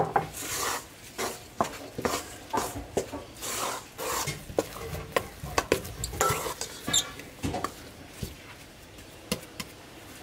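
A gloved hand mixing flour and water into jalebi batter in a stainless steel bowl: irregular wet stirring and scraping against the metal, with a few light knocks on the bowl.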